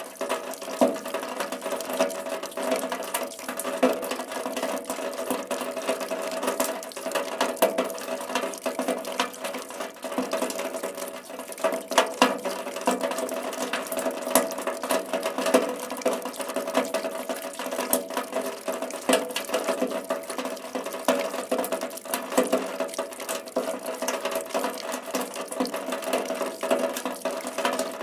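Steady rain with a dense, irregular patter of drops, many of them sharp ticks.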